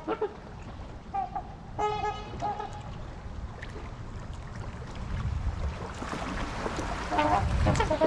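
Large waterfowl giving honking, horn-like calls: a short call about a second in, a louder honk about two seconds in, and another near the end, over a low steady rumble.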